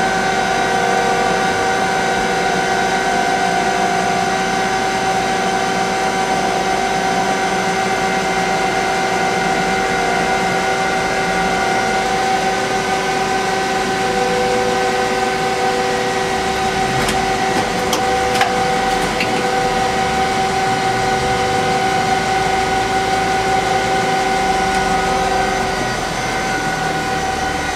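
Citizen F12 CNC Swiss-type lathe running its program, a steady mechanical whine of several tones. Another tone joins about halfway, and a few faint clicks come a little later.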